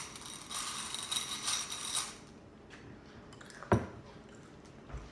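Skittles rattling and clinking in a ceramic bowl as it is handled, with a faint ring from the bowl, for about two seconds; a single knock follows a little later.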